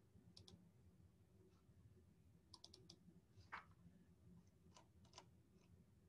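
Faint computer clicks over a low steady hum: a pair about half a second in, a quick run of four around two and a half seconds, then a few more singly.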